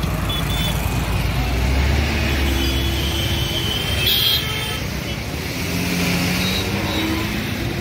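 Highway traffic going past, a steady mix of engines and tyre noise with a low rumble. A vehicle horn toots briefly about four seconds in.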